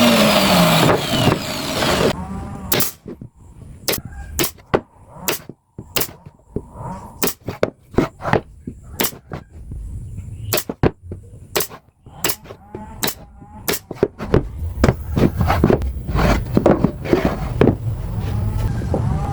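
A machine's noise falls in pitch and stops about two seconds in. Then comes a series of irregular sharp knocks, some ringing briefly, with a low rumble joining in later.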